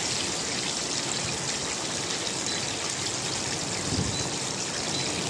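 Flour-coated chicken pieces deep-frying in a pan of oil: a steady bubbling sizzle.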